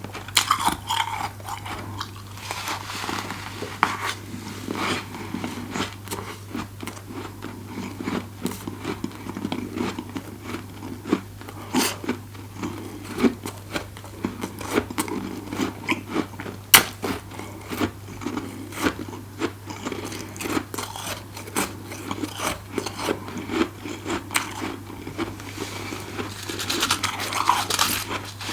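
Close-up crunching and chewing of freezer frost: a rapid, irregular crackle of bites and grinding as the powdery, icy frost is eaten.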